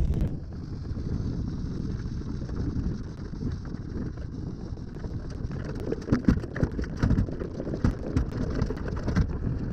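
Low rumble of a trailer and tow rolling across snow-covered river ice, with irregular crunching and crackling that grows more frequent about halfway through, and wind on the microphone.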